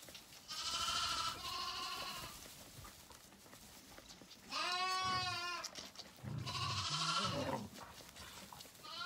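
Lambs bleating for the bottle at feeding time: about four long, quavering bleats, two back to back near the start and two more from about halfway, with another beginning at the end.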